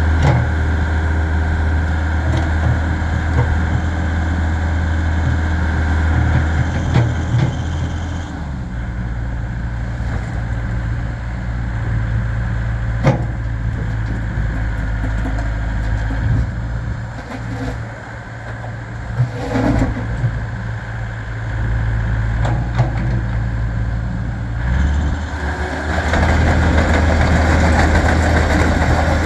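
Takeuchi TB070 hydraulic excavator's diesel engine running under hydraulic load as the boom and bucket work and the machine swings and tracks. The engine note changes about eight seconds in and picks up again near the end, with a few short knocks along the way.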